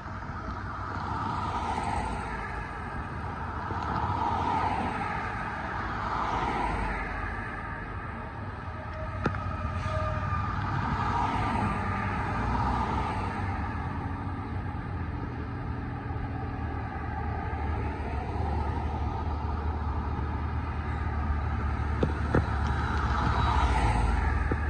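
Cars and trucks passing on a road one after another, each a swelling then fading engine and tyre noise. Beneath them runs the low, steady rumble of a double-stack intermodal freight train rolling over a stone arch bridge, stronger in the second half.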